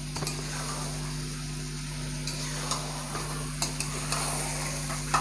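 Fried potatoes being stirred in masala in a metal kadai with a spatula. The oil and spices sizzle steadily, with a few light knocks of the spatula against the pan, as the potatoes are sautéed in the masala.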